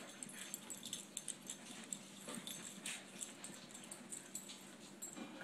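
Small dogs playing and chasing each other on carpet: faint scuffling dotted with many light, scattered clicks and ticks, and soft dog sounds.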